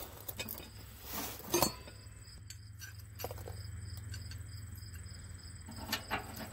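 A few light metallic clinks and taps as the steel stub guards, bolts and tool on a haybine cutter bar are handled, the sharpest about a second and a half in, over a faint steady low hum.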